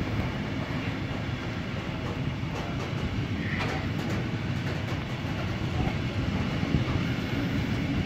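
Intermodal freight wagons loaded with lorry semi-trailers rolling past on the track: a steady rumble of wheels on rails, with a few faint clicks about three to four seconds in.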